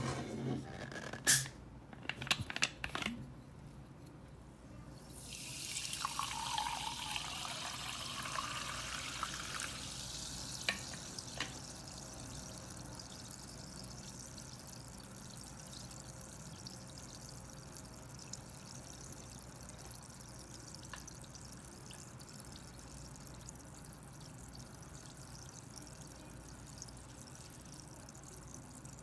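Bottle of heavily carbonated sparkling water opened with a few sharp clicks, then poured into a glass for about five seconds, the pouring note rising as the glass fills. After that the poured water fizzes steadily and faintly.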